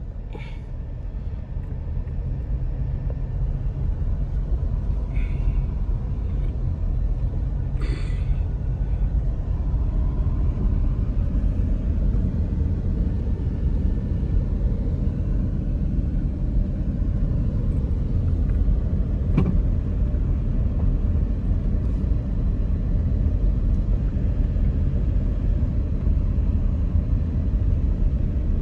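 Low, steady rumble of a car driving, heard from inside the cabin. It grows louder over the first few seconds and then holds, with a few short clicks.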